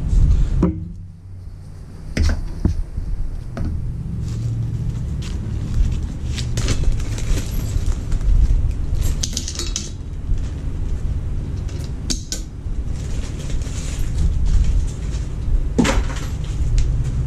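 Small screws clinking and a steel magnetic parts tray clanking as it is handled and set down, a scatter of sharp metallic clicks with one louder clank near the end, over a steady low hum.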